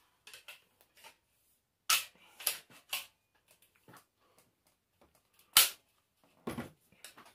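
Several sharp metal knocks and clatters as a metal strip and a wire-mesh cart basket are handled and knocked together, the loudest about five and a half seconds in.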